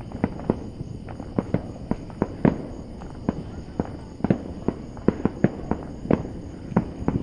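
Fireworks display heard from afar: an irregular run of sharp bangs and pops, a few each second.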